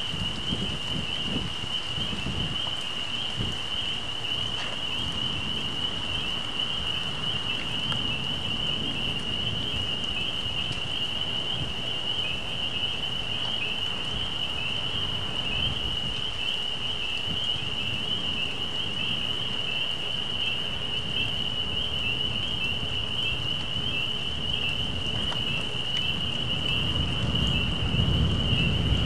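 Steady rain falling on leaves during a thunderstorm, an even hiss with a constant high-pitched drone running through it. A low rumble of distant thunder swells near the end.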